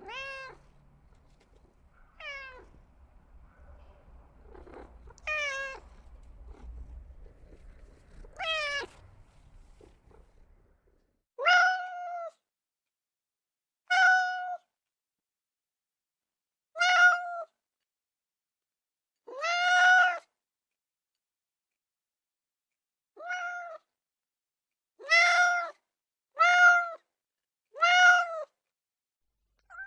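A cat meowing over and over, twelve meows in all: the first four slide down in pitch over a faint background hum, and the last eight hold a steadier pitch with complete silence between them.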